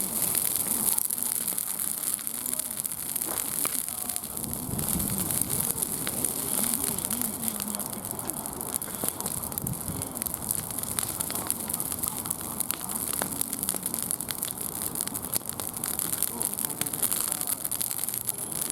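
Wood fire crackling: a steady hiss thick with small snaps and pops throughout. A faint voice murmurs underneath.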